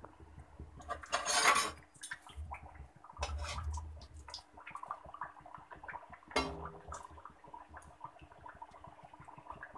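A kachori deep-frying in hot oil in a metal kadhai, the oil crackling and sizzling with many small pops. A metal slotted spoon scrapes and knocks against the pan, with a louder rush of sizzling about a second in and a sharp clink a little past six seconds.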